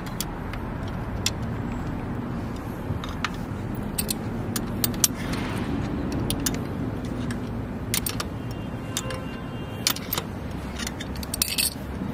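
Scattered sharp metallic clicks and clinks of a wrench and a metal mounting bracket being handled as the bracket is fitted and its bolt tightened on a wheelchair's wheel axle, over a steady low hum of road traffic.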